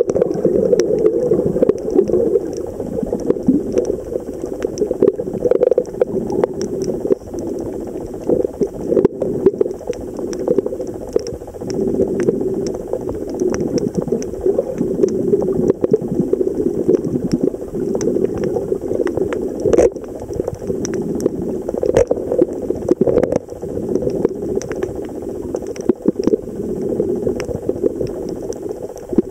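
Muffled underwater water noise heard through a submerged camera, a dull wash that swells and fades every few seconds, with scattered sharp clicks throughout.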